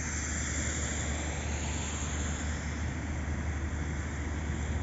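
Steady low rumble and hiss of distant road traffic, with wind buffeting the microphone.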